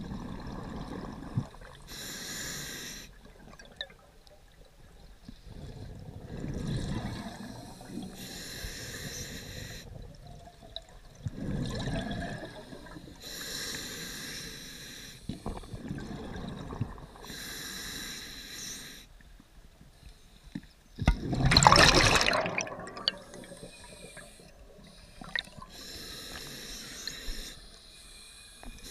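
Scuba regulator breathing underwater: about five slow breaths, each a hissing inhale through the regulator followed by a gurgling rush of exhaust bubbles. The loudest exhale, a big burst of bubbles, comes about three-quarters of the way through.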